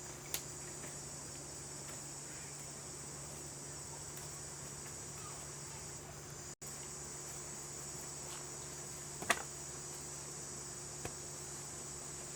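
Steady, high-pitched drone of insects in the forest, with a few short sharp clicks, the loudest about nine seconds in.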